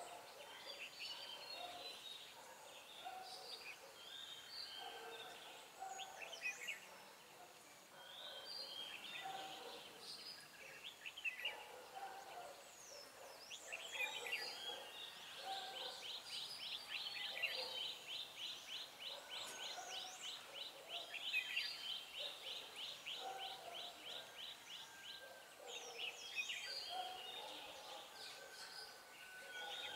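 Red-whiskered bulbuls calling and singing back and forth in short whistled and chirping phrases. Near the middle, a long run of fast repeated notes, about four a second, lasts some ten seconds. These are caged decoy bulbuls and a wild bulbul drawn in to answer them.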